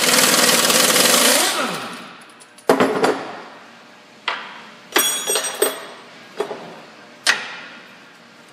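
A pneumatic impact wrench rattles for about two seconds as it spins the nut off the rear lower-arm-to-knuckle bolt, then trails off. It is followed by about six separate hammer blows on the steel bolt and knuckle, knocking the bolt out, some of them ringing.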